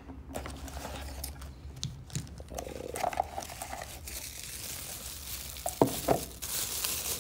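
Clear plastic bag crinkling and rustling as it is handled and pulled off a small tripod, growing busier in the second half, with a couple of light knocks a little before the end.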